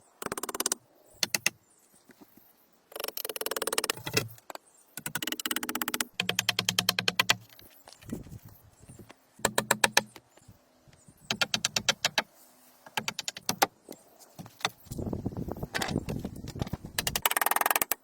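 Repeated short bursts of a fast, even mechanical clatter from a tool run on and off, some with a low hum under them.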